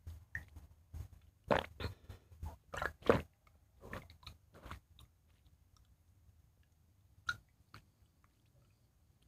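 A person gulping water from a plastic bottle: a quick, irregular run of swallows for about five seconds, then just two more near the end.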